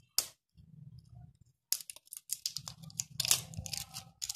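Plastic wrapping crinkling and tearing as it is peeled off a spool of kite string, in quick irregular crackles through the second half, with a single sharp click near the start.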